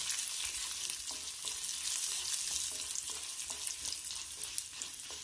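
Urad dal and dried red chillies sizzling and crackling in hot sesame oil in an iron kadai, stirred with a wooden spatula in short strokes about twice a second. The dal is turning light brown, and the sizzle eases off a little toward the end.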